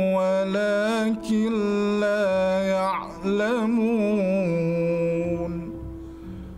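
A man reciting the Quran in a slow, melodic chant: long held notes with winding pitch turns and two short breaks for breath. The voice fades out near the end, leaving a soft steady musical drone beneath.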